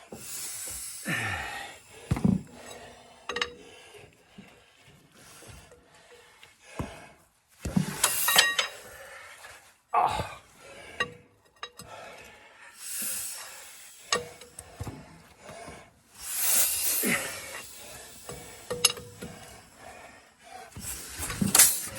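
Caterpillar Sixty crawler's cold engine being hand-cranked: irregular clanks, rasps and clinks of the crank and engine turning over, with hard puffs of breath from the effort. Near the end a single sharp pop as the engine fires once without catching.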